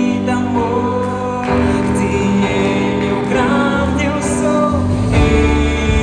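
Live gospel band playing a worship song, with a sung vocal line over electric guitars and keyboard; the chords change about one and a half seconds in and again near the end.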